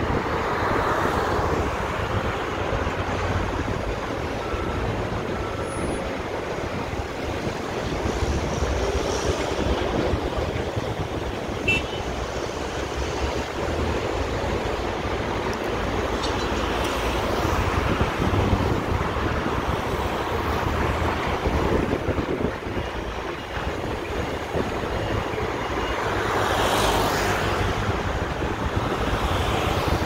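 Steady traffic noise from passing vehicles, swelling and fading several times over a low rumble.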